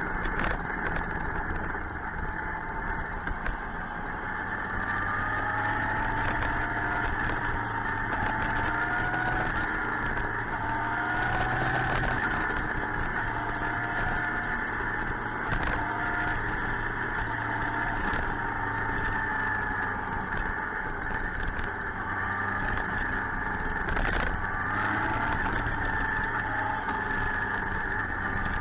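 Suzuki GSX-R 1000 inline-four motorcycle engine running under way, with steady wind and road rush. The engine note rises in pitch again and again as the bike accelerates.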